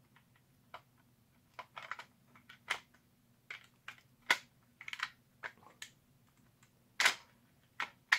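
Irregular light plastic clicks and clacks as a toy foam blaster's plastic shell and a 3D-printed rail are handled and lined up, the loudest clack about seven seconds in.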